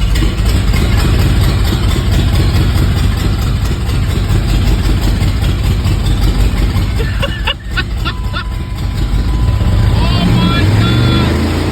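Ram pickup's engine running loud and hard near full throttle, with whole milk and Cheerios in the crankcase instead of engine oil. It briefly dips a little past the middle, and near the end it settles into a steadier pitched note.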